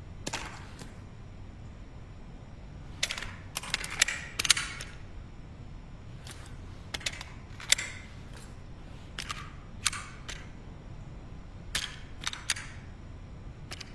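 SilencerCo Maxim 9, an integrally suppressed 9mm pistol, firing a string of suppressed shots: sharp, short reports with a brief ring after each, fired singly and in quick pairs and triplets with pauses between groups.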